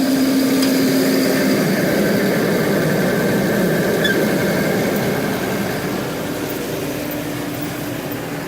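Farm tractor engine running steadily, heard from aboard the tractor during hay baling.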